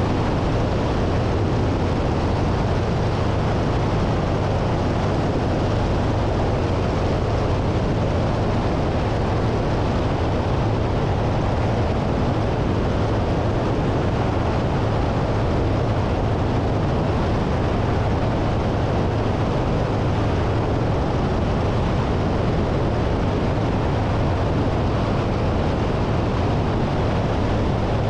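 Biplane's piston engine and propeller droning steadily in flight, with a steady low hum under heavy wind rush on the microphone.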